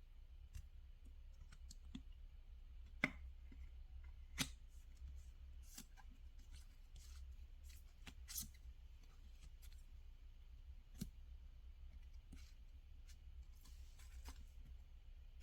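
Packaging being handled and opened by hand: scattered small clicks and rustles, the two sharpest about three and four and a half seconds in, over a low steady hum.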